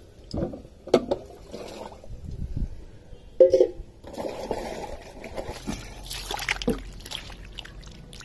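Raw squid pieces being handled in water in a steel bowl: irregular wet squelching, sloshing and trickling, with a louder squelch about three and a half seconds in.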